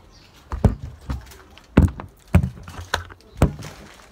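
About seven dull thumps, unevenly spaced.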